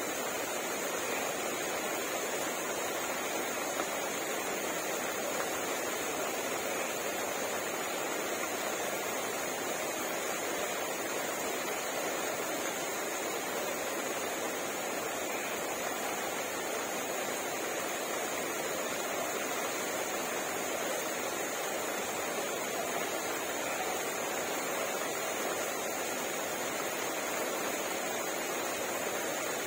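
Steady rain falling, an even hiss that neither builds nor fades.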